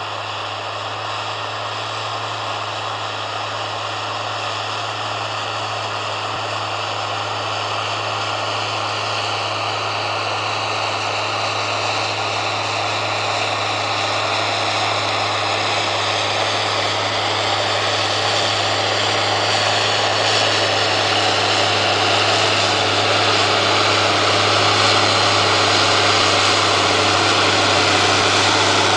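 New Holland TM155 tractor's six-cylinder diesel engine running steadily under load while pulling a plough through the soil, growing steadily louder as the tractor draws closer.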